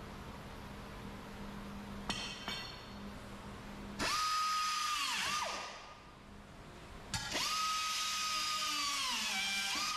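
Air-powered grinder working the steel of a car's quarter panel. It starts with a high whine about four seconds in and spins down after a second or so, then runs again from about seven seconds, its pitch sagging as it is pressed into the metal and rising again as it is eased off.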